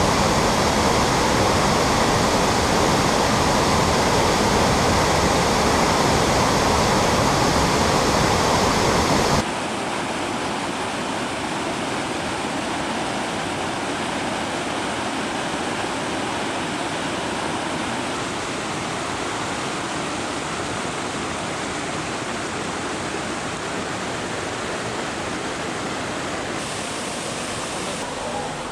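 Waterfall rushing with a steady roar of falling water. About nine seconds in it drops suddenly to a quieter, duller rush, which continues.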